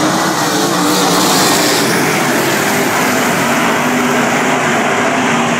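A pack of winged dirt-track sprint cars with V8 engines running together, a loud steady engine drone, swelling slightly about a second or two in as the field passes nearest.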